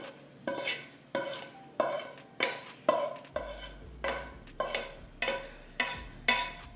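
Wooden spatula scraping sautéed onions and mushrooms out of a nonstick frying pan, in repeated strokes about two a second. Each stroke sets the pan ringing briefly as the pan is emptied into the baking dish.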